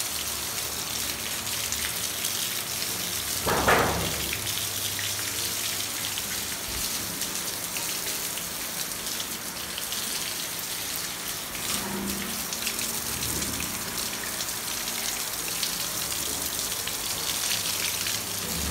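Water from a hose spray nozzle hitting a caged civet and the wire mesh and grating of its cage, a steady spattering hiss. A brief louder noise about four seconds in.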